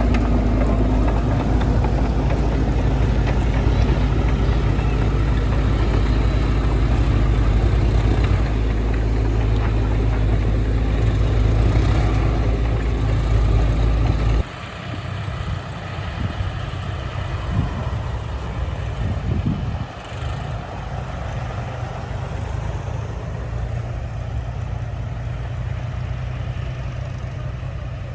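Heavy machine engine running steadily and loudly, then suddenly much quieter about halfway through, with a few brief swells in engine speed afterwards.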